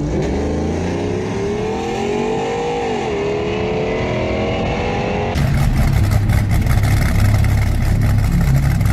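Ram pickup's Hemi V8 revving, its pitch climbing, dipping briefly about three seconds in, then climbing again. About five seconds in, a louder, rougher sound with a heavy low rumble takes over.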